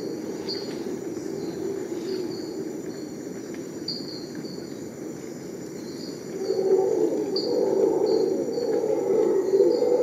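Tropical rainforest ambience: a steady high insect drone with short, high chirps repeating every half second to a second. Beneath them a lower, rougher chorus swells louder about six and a half seconds in.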